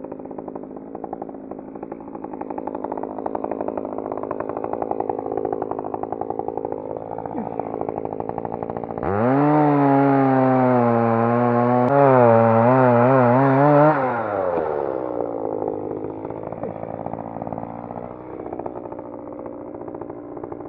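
Ryobi ES-3035 electric chainsaw running. About nine seconds in it gets much louder for about five seconds, its whine wavering as the chain cuts into the tree, then it winds down with a falling pitch.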